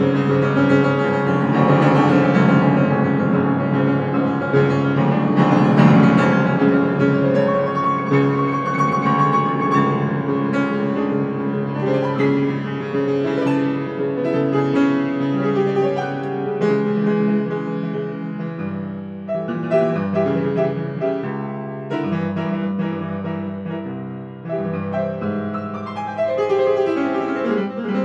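Grand piano played in free improvisation. Dense, sustained chords fill the first half, then thin out about two-thirds of the way in to sparser, separately struck chords.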